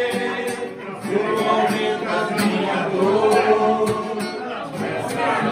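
Men singing to a strummed acoustic guitar, with steady strumming about two strums a second.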